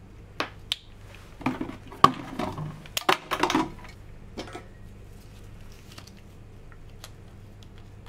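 Plastic lab-ware handling on a bench: two sharp clicks just under a second in, then a burst of knocks and rustling from about a second and a half to nearly four seconds in as a hand-held laboratory pipette is handled and set down, with a few faint ticks afterwards.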